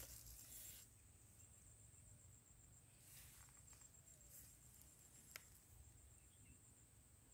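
Near silence, with a faint, steady, high-pitched pulsing trill like an insect's. There are a few soft rustles of the newspaper being handled and a single sharp click about two-thirds of the way through.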